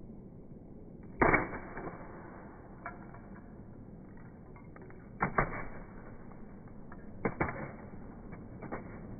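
A small camera dropped from a rooftop hits hard paved ground with a sharp crack about a second in. Two more sharp double knocks follow around five and seven seconds in, with a few fainter taps between.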